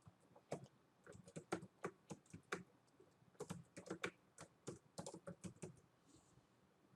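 Faint typing on a computer keyboard: a run of irregular key clicks that thins out about five and a half seconds in.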